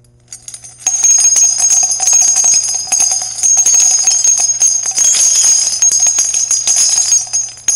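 Intro sting music: a bright, jingling shimmer of fast ticks and high ringing tones. It starts about a second in and fades out near the end.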